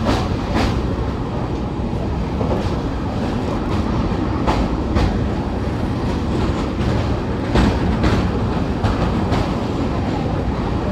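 Indian Railways passenger train, the Mahamana Express, running at speed over the Koilwar rail bridge, heard from on board: a steady rumble of wheels and coaches with clickety-clack clicks in pairs about half a second apart, repeating a few times.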